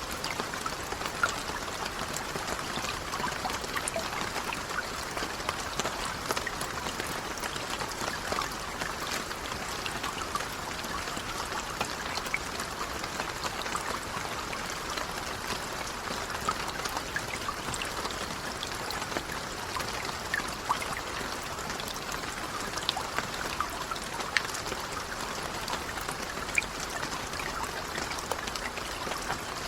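Light rain falling steadily, a soft even hiss with scattered individual drops ticking sharply throughout.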